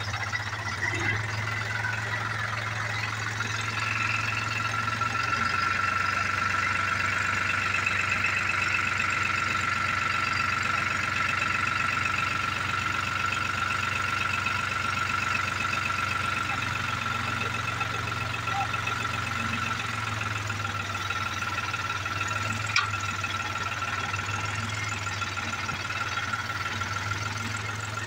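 New Holland diesel tractor engine running steadily while the tipping trolley's hydraulic ram raises the body, a higher whine over the engine strongest in the first half. A single sharp click comes about three-quarters of the way through.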